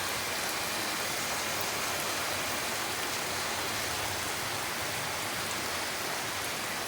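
Heavy rain pouring down steadily, an even hiss of rainfall with no break.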